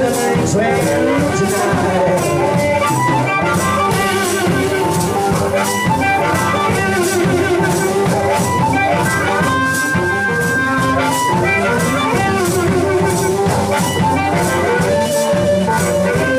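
Blues band playing an instrumental passage live: a harmonica wails and bends held notes over guitar chords, while maracas are shaken in a steady, even rhythm.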